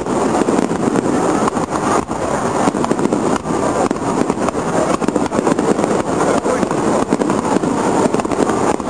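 Aerial firework shells bursting in quick succession, many sharp bangs and crackles running together into one continuous dense rumble.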